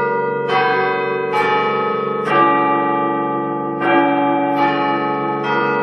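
Clock-tower chime bells striking a tune in two phrases of four notes, each note ringing on into the next.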